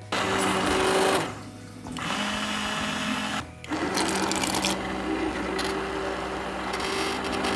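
Electric blender motor running in three bursts, with short pauses about a second in and about three and a half seconds in, as it purées broccoli soup.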